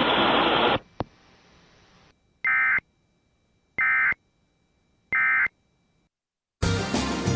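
Emergency Alert System end-of-message signal: three short, identical bursts of warbling SAME digital data tones about 1.3 seconds apart, marking the end of the alert. Before them a steady hiss cuts off with a click about a second in, and music starts near the end.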